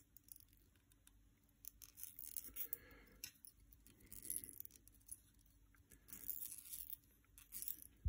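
Faint scratchy rasps and small ticks of fine tying thread being wrapped and pulled tight around a fly hook and foam body with a bobbin holder, coming in short spurts.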